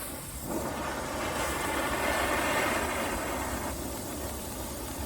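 Hand-held three-tube firework fountain spraying with a steady rushing hiss. The hiss starts about half a second in and eases off near the end.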